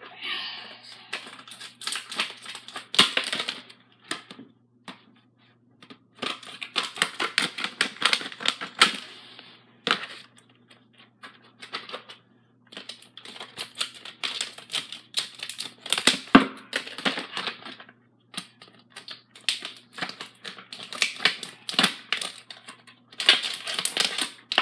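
Plastic packaging being cut and pulled open with scissors: runs of rapid crackling and clicking in several bursts a few seconds long, with short pauses between.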